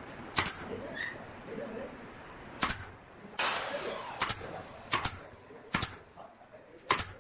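Six sharp hammer blows on wood at uneven intervals, with a short rasping scrape about three and a half seconds in.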